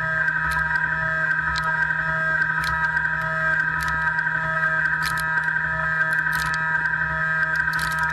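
CNC milling machine cutting with an end mill in dynamic milling: a steady high whine from spindle and cut, with a lower tone that pulses on and off about every half second and scattered sharp ticks.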